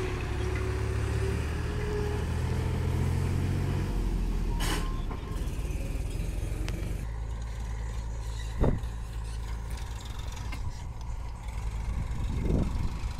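Diesel farm tractor engine running as it tows a trailer loaded with sand, with a low, steady rumble. There is one sharp knock about two-thirds of the way through.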